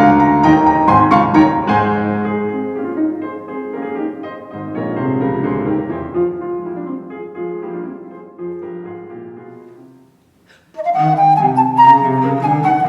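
Classical chamber music recording with piano and flute that fades away to a brief silence about ten seconds in, then a different piece starts abruptly near the end.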